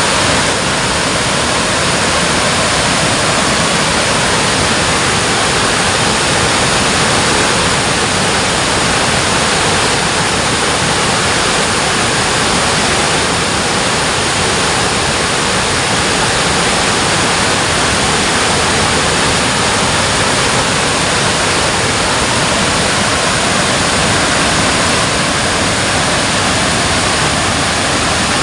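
Water pouring through a dam, heard as a loud, steady, unbroken rush.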